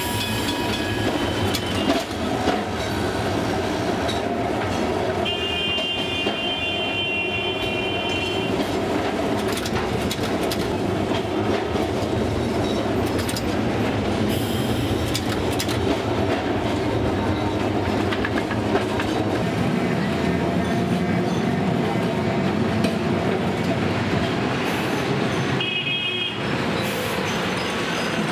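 Old Calcutta electric tramcar running along street track, heard from inside its cab: a steady rumble and rattle of wheels on rails with frequent clicks and a low hum. A vehicle horn sounds for about three seconds some five seconds in, and briefly again near the end.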